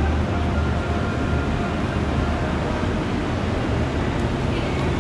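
Steady low rumble and hiss of a shopping-mall interior's ambience, picked up by a moving camera.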